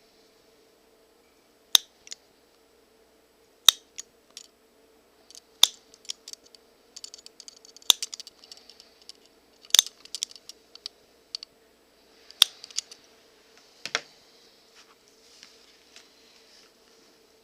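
Hand-sewing leather: sharp clicks about every two seconds with soft scraping and rustling between them as the needle and thread work through the hide, over a faint steady hum.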